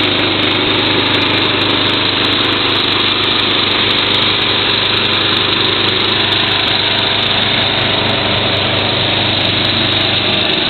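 Small engine running steadily, the kind that drives a sealcoat spray rig's pump, under a steady hiss as sealer sprays from the wand.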